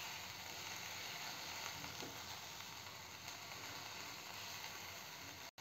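Chopped onions and ginger-garlic paste sizzling faintly and steadily in hot oil in a nonstick frying pan as they are stirred and fried.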